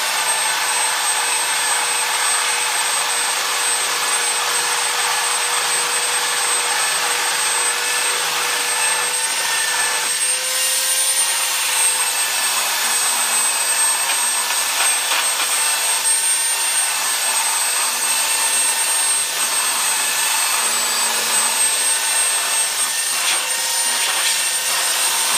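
Craftsman 3x21-inch electric belt sander running steadily as its belt sands across wooden bench slats, with a high motor whine.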